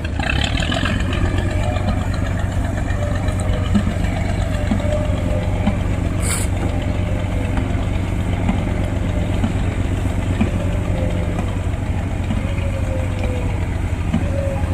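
An engine running steadily with a low hum, and a brief high hiss about six seconds in.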